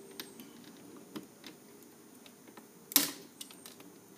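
Plastic emblem clips being pried from a car's front fascia: a few faint small clicks, then one sharp loud snap about three seconds in, a snap clip on the back of the Chevrolet bowtie emblem breaking off.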